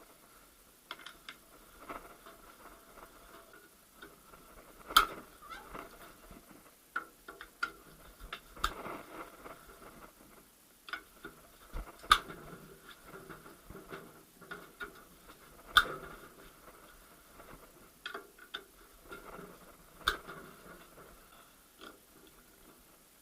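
Hand tools working on the bolts of a VAZ manual gearbox casing: scattered metal clicks and clinks, with five sharper knocks spaced three to four seconds apart.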